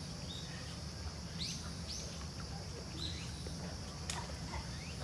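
Otters squealing as they fight: several short, high calls that fall in pitch, over a steady insect drone.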